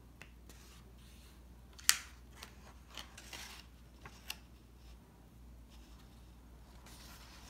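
Glossy paper pages of a picture book being turned and handled: soft rustling, with a sharp snap of the page about two seconds in and a few lighter clicks after it.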